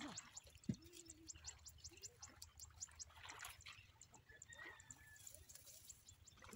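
Near silence: faint outdoor ambience with an insect chirping fast and evenly, the chirps thinning out after a few seconds.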